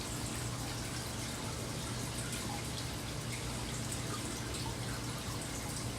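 Steady background room noise: an even low hiss with a faint hum underneath, and no distinct events.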